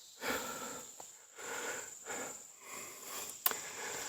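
A man breathing hard in a quick run of breaths, winded from climbing up into a ladder stand. A single sharp click comes about three and a half seconds in.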